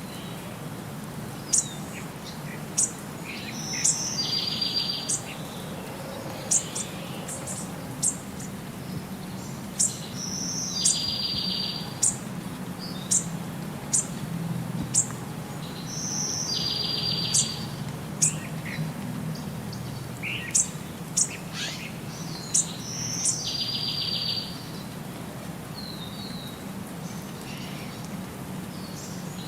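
Bird song: a short, high, rapid trill repeated about every six seconds, with sharp high chirps in between, over a low steady hum.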